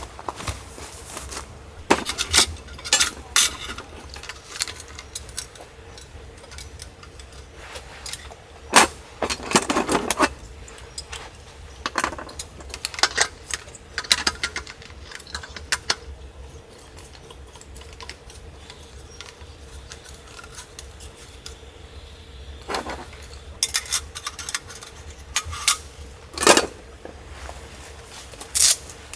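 Camping gear being handled: irregular clinks and clatters of small hard, metallic objects, the loudest around nine to ten seconds in and again near twenty-six seconds.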